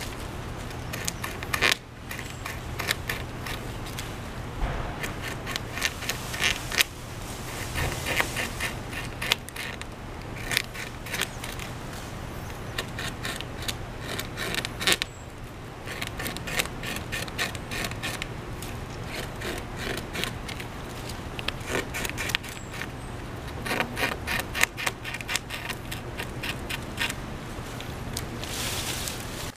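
Adult beaver gnawing through a thick poplar limb: its incisors scraping into the wood in runs of quick rasping strokes, several a second, broken by short pauses.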